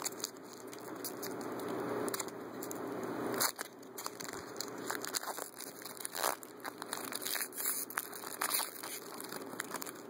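Trading-card pack wrapper crinkling for the first few seconds as it is opened, then cards being handled, with scattered small clicks and rustles.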